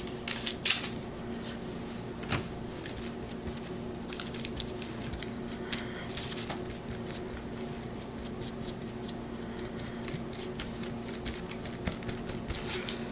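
Soft scratching and tapping of a paintbrush working glue onto a corrugated cardboard heart, with a few sharper handling noises in the first couple of seconds, over a steady low hum.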